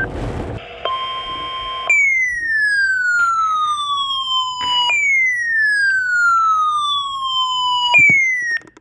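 Electronic siren-style alert: a steady one-second beep, then a falling sweep about three seconds long, repeated three times with the last cut short. It heralds a severe thunderstorm warning broadcast.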